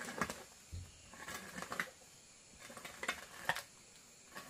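Irregular clattering and rustling as things are picked up and handled, in three short bursts: one at the start, one a little over a second in, and one about three seconds in.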